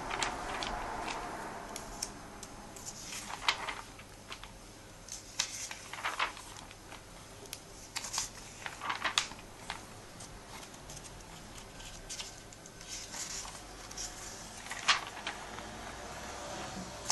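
Paper and light handling noises as a comic book is handled: intermittent rustling with scattered soft clicks and taps.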